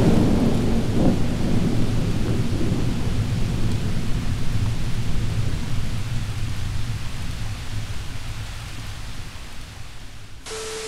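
Thunderstorm sound effect: a thunder boom at the start and another about a second in, then a steady low rumble under a rain-like hiss that slowly fades. A steady beep tone starts just before the end.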